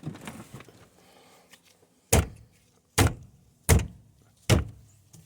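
Four sharp knocks about a second apart, a hand striking a Nissan Frontier steering wheel to knock it loose from the steering shaft. Faint handling noise comes before the first knock.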